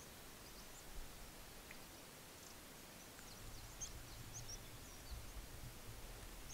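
Faint, scattered high chirps and whistles of small birds over a low background rumble.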